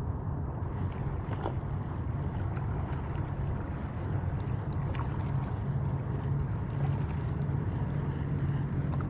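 Steady low rumble of wind and water on a small fishing boat, with a faint steady high whine and a few light clicks.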